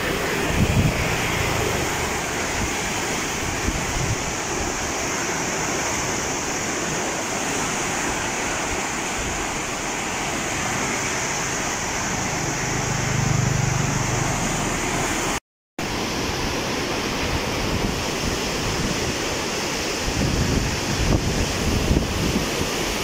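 Steady rush of turbulent floodwater pouring out below the Chao Phraya Dam's open gates during a heavy release, with gusts of wind on the microphone. The sound cuts out for a moment about two-thirds of the way through.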